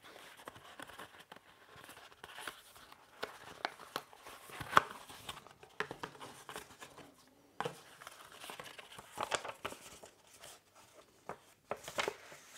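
Paper rustling and crinkling as folded instruction leaflets are handled, pulled from a card sleeve and opened out, with small scattered taps and clicks. A sharper snap comes a little under five seconds in.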